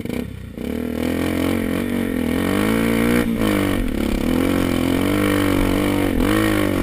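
Dirt bike engine pulling away from idle about half a second in, then running under load up a steep, rocky climb. The revs rise and fall as the throttle is worked, with brief drops about three, four and six seconds in.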